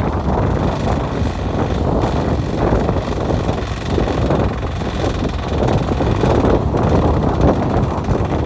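A fishing boat's motor running steadily under heavy wind buffeting on the microphone, a dense rumbling noise with no break.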